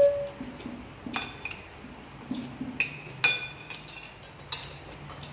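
Metal spoons and forks clinking and scraping against ceramic plates and bowls during a meal. There are several sharp, ringing clinks, the loudest at the start and about three seconds in.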